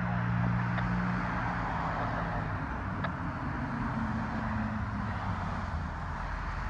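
Heavy vehicle's engine running, a steady low hum that eases off about halfway through, over street traffic noise.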